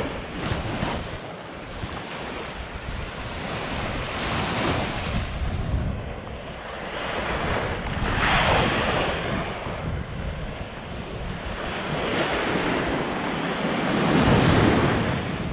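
Sea waves washing onto a beach, rising and falling in several surges, with wind buffeting the microphone.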